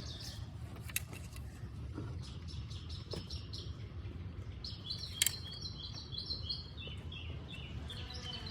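Small birds chirping in quick short calls, busiest in the middle of the stretch, over a steady low background rumble, with a few light clicks about a second in and again around five seconds.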